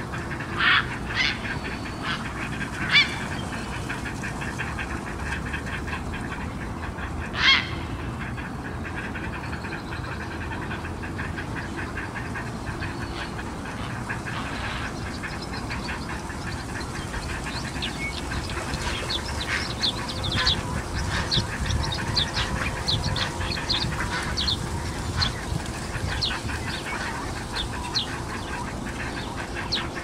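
Mallards calling: a few loud, sharp quacks in the first eight seconds, then many short, quick calls through the second half, over a steady low rumble.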